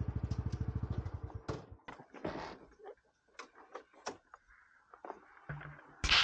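Motorcycle engine idling with an even low pulse, shut off about a second in. Scattered clicks, knocks and handling rustles follow, with one louder knock near the end.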